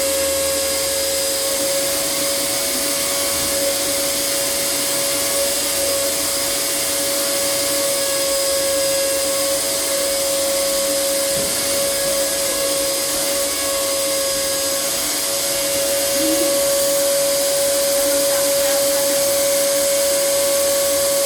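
Vacuum cleaner running steadily as it dry-vacuums sofa upholstery: a constant motor whine over a rushing hiss of air, with only slight wavers in pitch.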